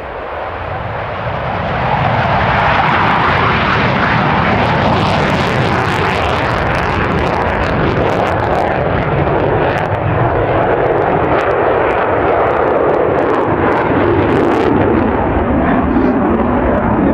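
Boeing F/A-18F Super Hornet's twin General Electric F414 jet engines at high power during a low pass: the jet noise swells over the first two seconds, then stays loud with a ragged crackle through the middle, its pitch slowly sinking toward the end.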